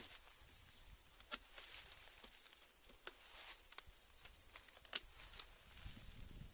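Hand pruning shears snipping side branches off a Sang Mon bamboo culm: four sharp clicks a second or so apart, with faint rustling of leaves between them.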